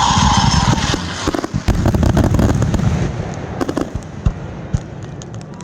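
Fireworks finale: a dense barrage of booms and sharp crackling cracks over a low rumble, with a whistle fading out in the first second. After about three seconds the barrage thins to scattered, quieter pops and cracks.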